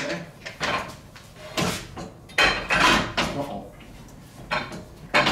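Heavy metal clunks and scrapes as a Ford 9-inch rear axle housing is shifted and set onto leaf springs under a truck frame. They come in several separate bursts, the longest about two and a half seconds in.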